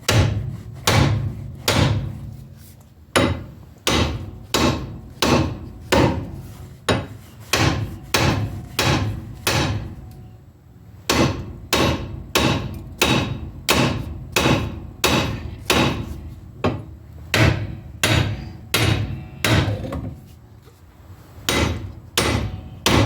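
Steady hammer blows on a seized bolt-on wheel hub assembly, about two strikes a second, knocking it loose. The run pauses twice, about ten seconds in and again near the end.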